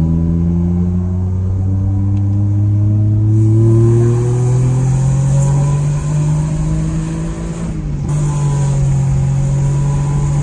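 Inside the cabin, a Dodge Stealth R/T's 3.0-litre V6 pulls under acceleration through an aftermarket downpipe, high-flow cat and Maximal single-shot exhaust, run with the silencer insert removed. The engine note climbs in pitch over the first few seconds, then holds, with a brief dip about eight seconds in.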